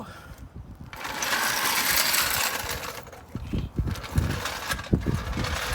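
Metal floor jack being rolled into place on pavement: a scraping, rattling roll, then a run of irregular clanks and knocks as it is set down and positioned.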